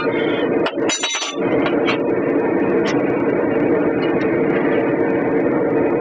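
Steady mechanical running noise, like a motor or fan running, with a short metallic ring about a second in.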